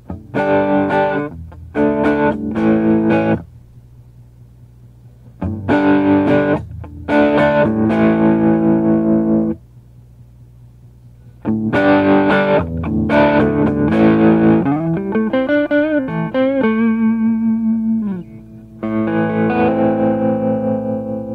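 Les Paul-style electric guitar with Southern Cross humbucking pickups, wired with 50s Les Paul wiring and linear 500k pots, played through an amplifier. Short phrases of strummed chords are separated by brief pauses. About fifteen seconds in comes a lead line with bent, wavering notes, followed by a ringing chord.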